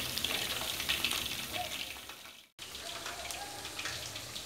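Chicken wings deep-frying in hot oil in a wok, a steady sizzle with small crackles and pops; the wings are cooked through. The sizzle fades out and drops away briefly a little past halfway, then comes back.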